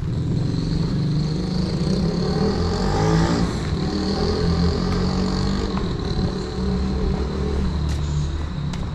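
A motor vehicle driving past, its engine loudest and shifting in pitch about three seconds in.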